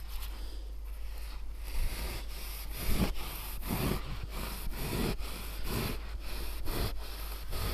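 Long serrated mineral-wool knife sawing through a 50 mm Rockwool facade stone wool slab, short back-and-forth strokes at about two a second.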